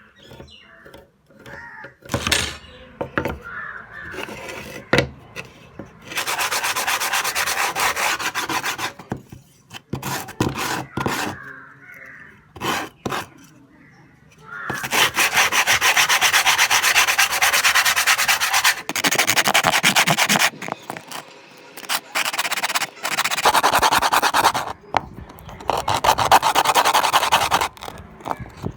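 Sandpaper rubbing on wood in three long stretches of several seconds each, with scattered knocks and taps in between.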